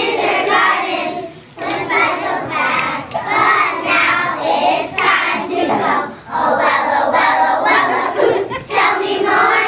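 A group of kindergarten children singing together as a choir, in phrases broken by short pauses.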